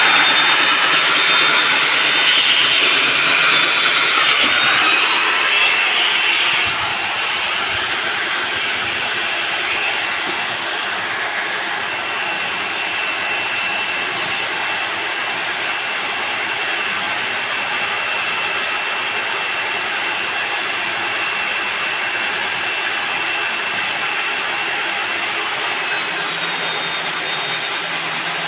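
Electric core drilling machine running and cutting a hole through a concrete slab: a steady grinding noise with a high whine, a little louder for the first six or seven seconds, then settling.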